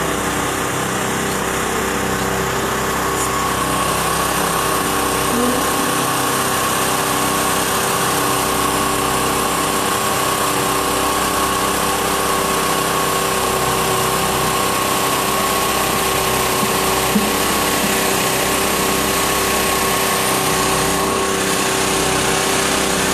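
A small engine running steadily, a constant drone that holds one pitch.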